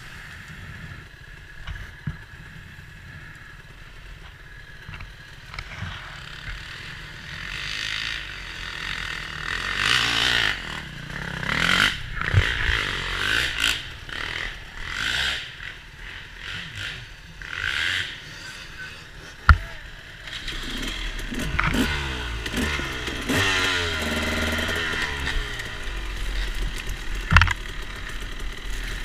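Dirt bike engines running unevenly at low speed, with revs rising and falling in the last third. Brush and leaves scrape and clatter throughout, and there is one sharp knock about two-thirds of the way through.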